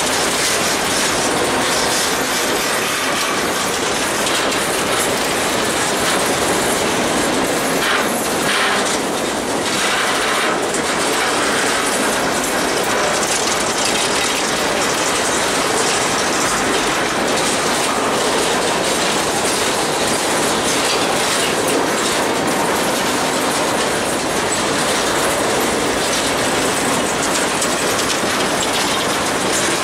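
Freight train's boxcars rolling past close by, their steel wheels clicking over the rail joints in a steady, continuous clatter.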